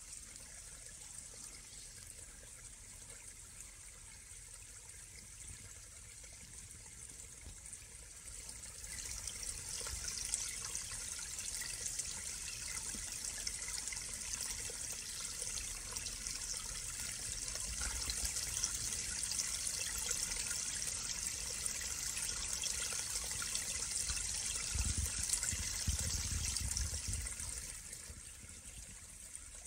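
Small forest stream trickling through a tangle of branches and fallen leaves. It is faint at first, grows louder about nine seconds in and fades near the end, with a brief low rumble a few seconds before it fades.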